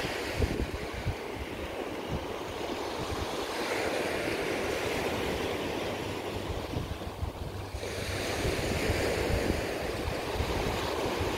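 Small waves breaking and washing up a sandy beach, with gusty wind rumbling on the microphone.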